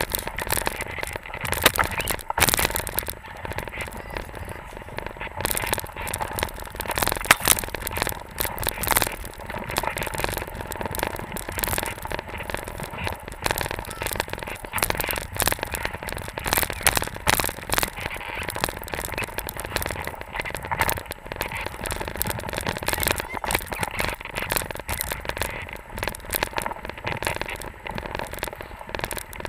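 Dense, irregular crackling and scraping of hok skis sliding over snow while a pair of dogs pulls ahead on a towline.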